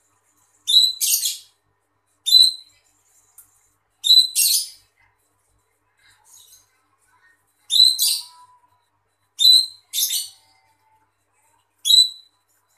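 Female cucak ijo (greater green leafbird) giving a string of short, high calls, about one every one to two seconds, several of them in quick pairs.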